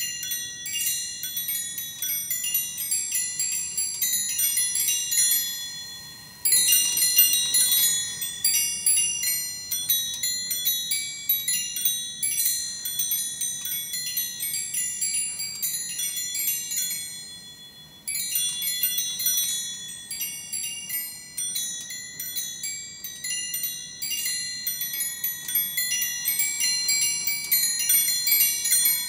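Antique automaton clock's musical movement playing a fast, tinkling tune of high ringing chime notes. The tune fades and starts over loud about six seconds in and again at about eighteen seconds, a phrase of roughly twelve seconds repeating.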